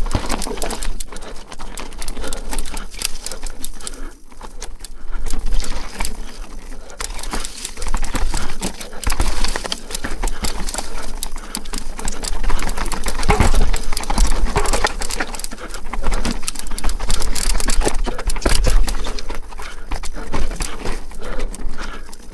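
Downhill mountain bike ridden fast over a rough trail, heard from an on-board camera: wind buffeting the microphone along with a constant clatter and knocking of the bike over bumps and roots.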